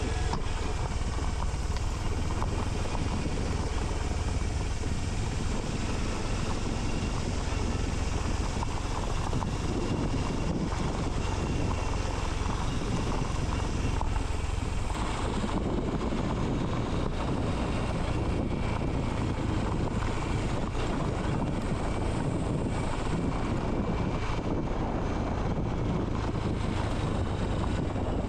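Honda CT125 Hunter Cub's air-cooled single-cylinder four-stroke engine running steadily under way, mixed with wind rush on the microphone.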